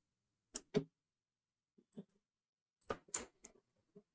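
Faint computer mouse clicks in short, sharp pairs: two about half a second in, a faint single click near two seconds, and two or three more around three seconds in.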